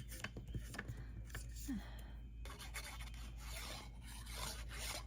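Cardstock being slid and pressed into place by hand, with soft rubbing and rustling and a few light taps.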